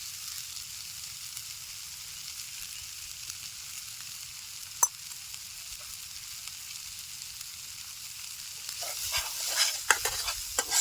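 Boiled kuda pods in a spiced onion-tomato masala sizzling in hot oil in a pan, a steady hiss, with one sharp click about five seconds in. From about nine seconds on, a spoon stirs and scrapes through the pan.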